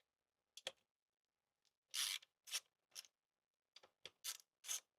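A hand tool working a fairing bolt loose on a motorcycle panel: faint short scraping strokes, a few spaced out at first, then coming quicker, about two or three a second, near the end.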